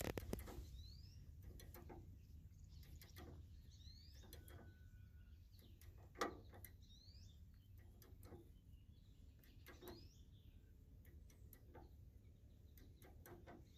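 Faint bird chirps, short rising notes every couple of seconds, over scattered light clicks and knocks, with one louder knock about six seconds in.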